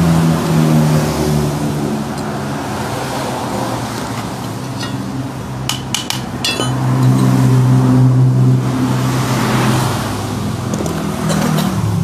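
A steady low mechanical hum that shifts slightly in pitch and grows louder in the second half, with a few sharp clicks about six seconds in.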